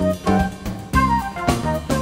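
Band music with a steady beat: drum kit hits under bass and saxophone lines.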